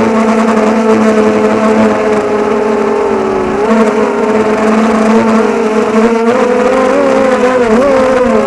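Mini H4 FPV quadcopter's motors and propellers whining loudly and steadily, the pitch wavering up and down from about the middle and more near the end.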